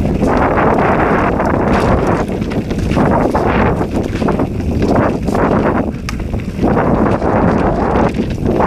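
Mountain bike riding a dirt singletrack: wind rushing over the camera microphone in surges, mixed with tyres rolling on the ground and the bike rattling, with a few sharp clicks.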